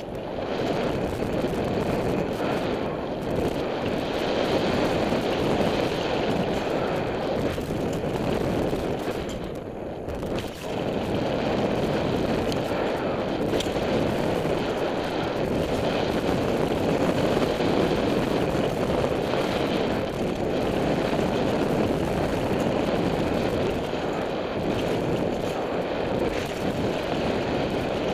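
Steady rush of wind and tyre noise on a helmet-mounted camera as a downhill mountain bike rolls fast down a dirt trail, dipping briefly about ten seconds in.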